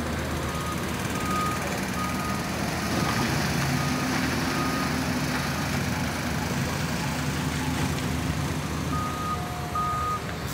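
Heavy diesel engines of a dump truck and excavator running steadily, with a reversing beeper sounding about two beeps a second at the start and again near the end.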